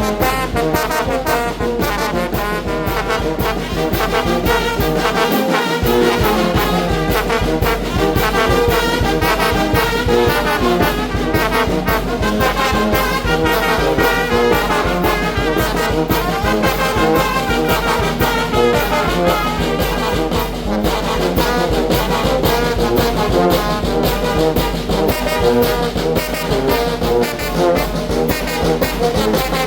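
Mexican brass band playing a huapango: trombones and trumpets over a steady beat and bass line.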